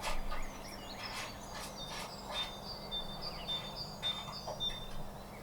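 Birds singing: quick high chirps and, from about halfway, a string of short repeated whistled notes, with scattered light clicks and knocks among them.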